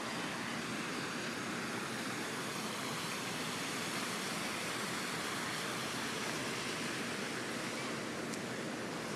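Floodwater rushing steadily along a street curb, a constant even roar of running water.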